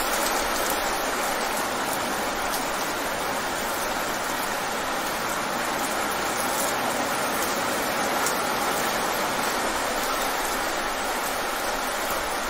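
Rain falling fast on wet pavement: a steady, even hiss of splashing drops, with a few sharper single drop ticks now and then.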